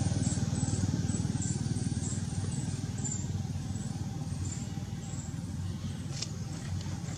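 A motor vehicle engine running steadily with a low hum, slowly getting quieter. A single click about six seconds in.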